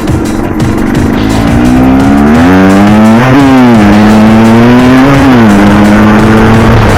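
Off-road quad's engine revving, climbing in pitch to a peak about three seconds in and again briefly about five seconds in, with music playing over it.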